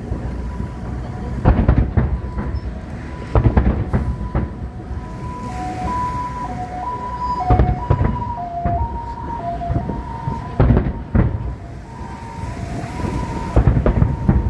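Aerial fireworks shells bursting, a string of deep booms and sharp cracks at irregular intervals. Behind them a thin siren-like tone alternates between a higher and a lower pitch.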